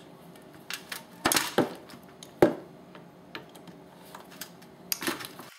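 Scattered sharp clicks and taps of a hand driver with a T30 Torx bit working on the screws of a power steering pump, metal tool against the metal pump. About eight clicks come at irregular intervals, the loudest about one and a half and two and a half seconds in.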